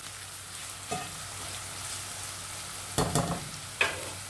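Chopped onion, garlic and ginger sizzling steadily in hot oil in a non-stick pan as they are sautéed toward browning. A spatula scrapes and knocks against the pan about a second in and again a few times near the end.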